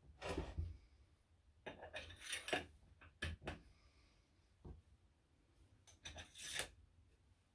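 Metal parts of a small wood lathe being handled and adjusted: the tailstock slid along the bed, with scrapes, clinks and clunks in about five short bursts.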